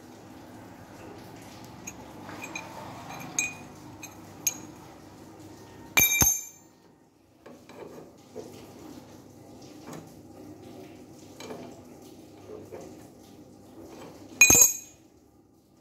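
Steel brackets and parts clinking as they are handled and fitted at a buggy's steering knuckle, with two sharp metallic clanks that ring briefly, about six seconds in and near the end.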